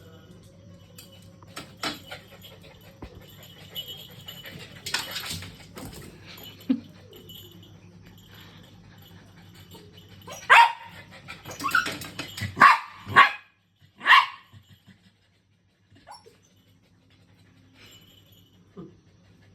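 A dog barking: a quick run of about five sharp barks a little past the middle, over a low steady hum.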